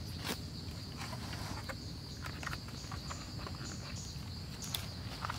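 Forest ambience: insects droning in one steady high tone, with scattered light ticks and crackles over a low rumble.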